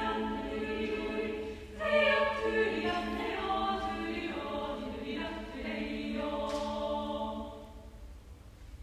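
Women's choir singing a cappella: a held chord, a brief break, then a louder phrase about two seconds in, ending on a final chord that dies away about seven and a half seconds in.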